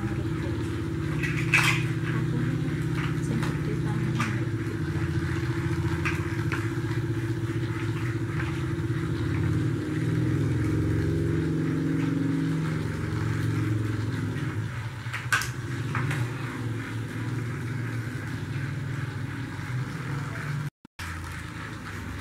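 Battery-powered toy train running steadily, its small electric motor and gears giving a continuous whirring hum, with a few light clicks.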